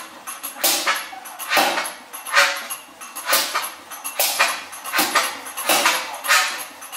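Old single-cylinder MWM stationary engine running slowly, its exhaust firing in sharp chuffs about once a second.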